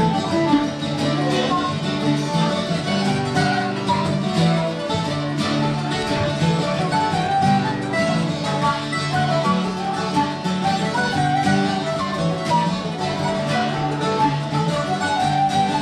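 Irish traditional music played on string instruments, a continuous run of plucked and bowed notes.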